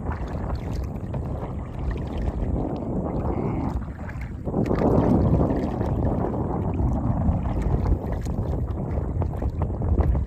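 Wind buffeting the microphone of a kayak on open water: an uneven rumbling rush that swells about four and a half seconds in.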